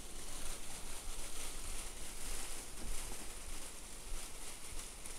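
Footsteps and rustling in dry leaves and undergrowth, irregular and soft, over a steady hiss and low rumble from a body-worn camera's microphone.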